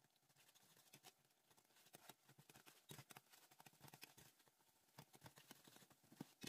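Near silence, with faint scattered ticks and clicks.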